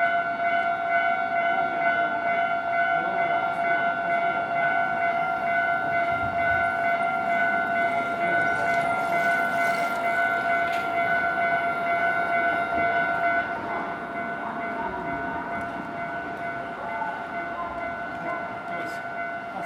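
Japanese railway level-crossing warning alarm ringing, a steady repeating electronic bell tone. It gets quieter about two-thirds of the way through.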